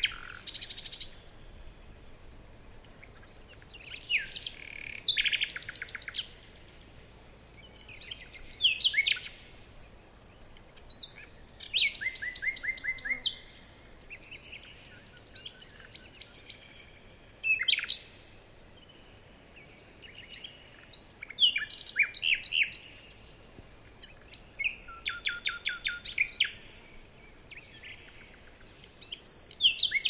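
Songbirds singing: short phrases of rapid, repeated trilled notes, one every three to four seconds, over a faint steady background hiss.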